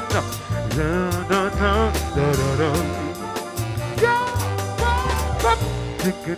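Soul song playing: a singer's wordless, wavering vocal runs over a bass line and a steady drum beat.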